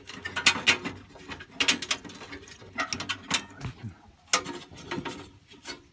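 Irregular metallic clicks, rattles and scrapes from hands working the igniter wire's push-on connector and the sheet-metal parts of an Atwood 8525 RV furnace's igniter and gas valve assembly.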